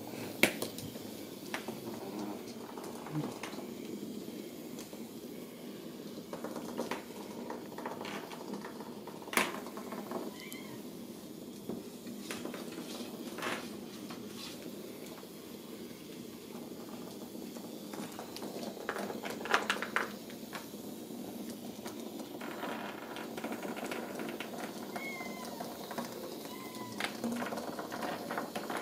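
Ragdoll kittens at play, giving a few short, faint meows now and then, with scattered knocks and clicks from their scuffling and batting at plastic ring toys on a tile floor.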